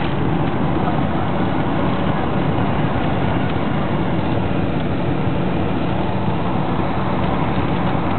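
Steady roar of a jet airliner's engines and rushing air, heard inside the cabin during the landing roll with spoilers and flaps deployed.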